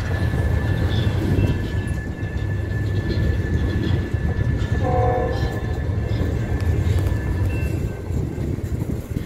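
Freight train of centerbeam flatcars loaded with lumber rolling steadily past: a continuous low rumble of wheels on rail, with a steady high whine through most of it that stops near the end. A short tonal note sounds about halfway through.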